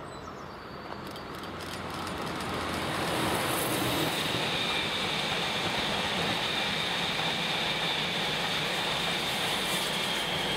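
Electric freight train passing close by: a red electric locomotive hauling a rake of white Euro Cargo Rail Traxx locomotives, its wheels rolling on the rails and growing louder over the first few seconds. From about four seconds in, a steady high whine sits over the rolling noise.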